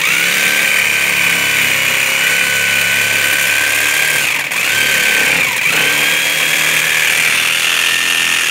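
Electric jigsaw cutting through a piece of tire rubber: a loud, steady motor whine that dips briefly in pitch twice around the middle as the blade loads up in the rubber.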